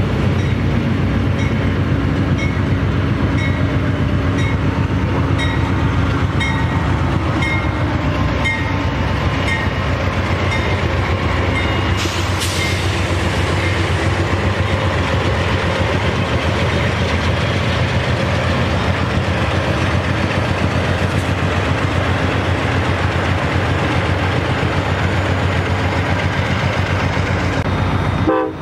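Model passenger train rolling steadily along the track with a continuous rumble, and light, evenly spaced clicks of wheels over rail joints during the first several seconds; one sharper click about twelve seconds in.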